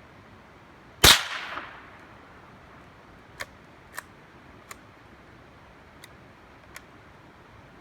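A single close gunshot about a second in, with a short echoing tail. It is followed by five much fainter sharp cracks, spaced irregularly over the next few seconds.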